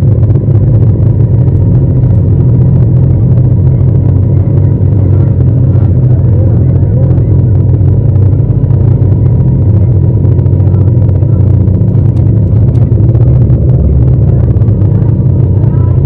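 Yamaha MT-07's parallel-twin engine running steadily at low revs, a deep, even rumble as the bike rolls slowly.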